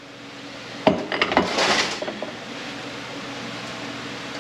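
Metal parts of a Honda BOYA automatic transmission clinking and knocking, followed by a short scrape, as a clutch drum is worked off its shaft.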